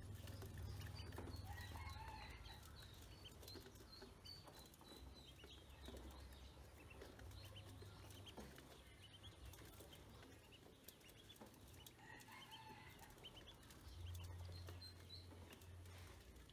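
Ducklings peeping softly in short high chirps, in a run near the start and again near the end, while their bills tick on grain in a metal basin. A low hum runs underneath.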